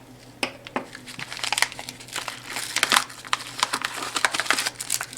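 Small plastic shipping bag crinkling and rustling as it is handled and opened, with dense irregular crackles.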